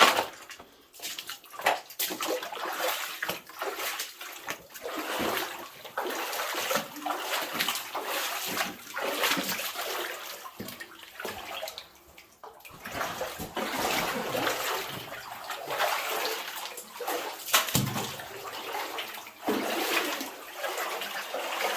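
Boots wading through shallow water along a flooded mine level, sloshing and splashing with each step in an uneven rhythm, easing off briefly about halfway through.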